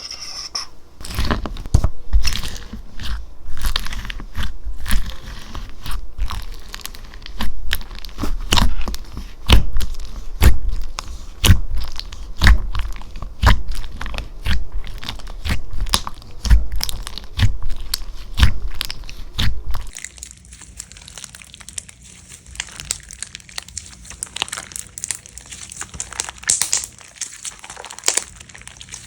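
Slime being squeezed and poked close to the microphone, giving crunchy pops and clicks with a low thump, many a second; about twenty seconds in it changes to a quieter, finer crinkling crackle.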